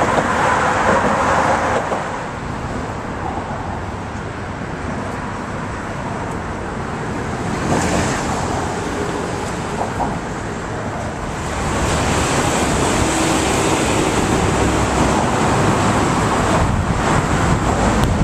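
Steady road traffic noise from vehicles crossing the bridge, growing louder about two-thirds of the way through.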